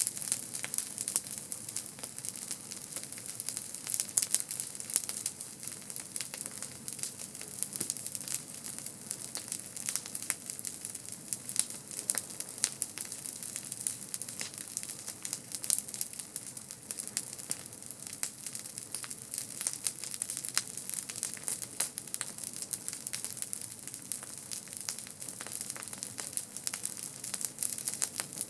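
Campfire burning, wood crackling with many small sharp pops over a steady hiss.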